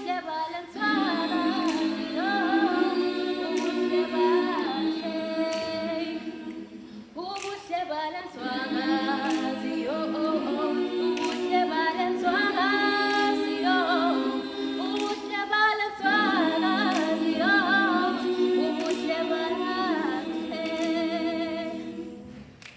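Girls' a cappella group singing in harmony without instruments, lower voices holding long chords under a moving melody line. The song ends near the close.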